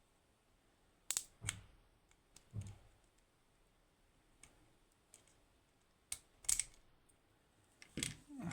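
Sharp, scattered metallic clicks and taps, some in quick pairs, from small parts and tools being handled while a Lockman Megacross pin-tumbler lock is taken apart: pins, drivers and springs being worked out and set down.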